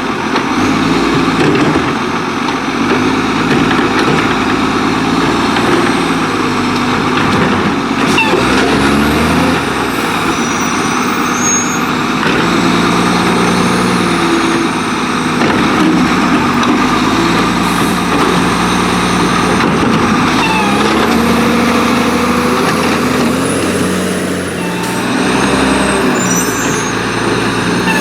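Autocar WX garbage truck's diesel engine revving in gear, its pitch climbing and dropping several times as the truck pulls between stops.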